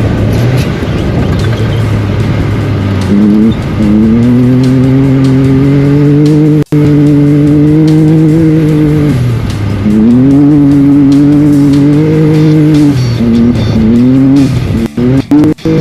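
Off-road race vehicle's engine at high revs, its pitch climbing, holding steady for a few seconds, then falling away and climbing again as the throttle is worked. The sound cuts out abruptly for an instant once in the middle and several times near the end.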